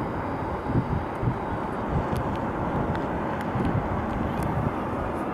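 Steady outdoor rumble of distant road traffic, with wind buffeting the camera's microphone in irregular low gusts.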